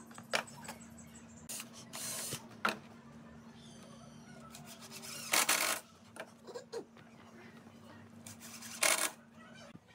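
Cordless drill driving screws into pine framing in a few short bursts, the longest about half a second, with clicks and knocks of wood between them, over a steady low hum.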